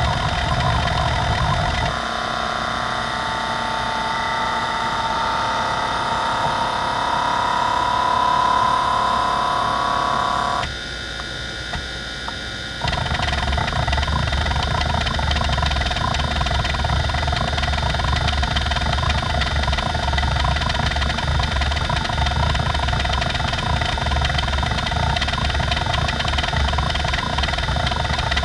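NEC D3122 20 MB hard drive seeking under a benchmark: its heads chatter rapidly in random seeks over the spindle motor's steady whine. About two seconds in, this gives way to an even buzzing tone that slowly rises in pitch, the track-to-track seek test. Near the middle the seeking stops for about two seconds, leaving only the spindle whine, then the rapid random-access seek chatter starts again.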